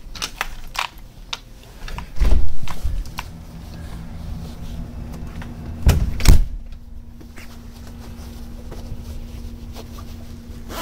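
A motel room door being unlatched and opened: a chain lock rattling and clicking, then two loud thumps about two and six seconds in as the door is handled. A steady low hum follows once outside.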